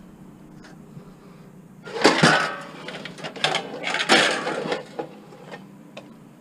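Scrap metal and junk clattering and banging as pieces are moved and dropped. It is a burst of rattling knocks that starts about two seconds in and lasts about three seconds.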